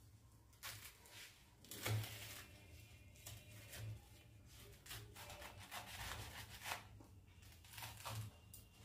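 A knife scraping and crunching through a slab of sesame-coated puffed-rice chikki in a steel plate as it is pressed and cut into pieces: faint, irregular strokes.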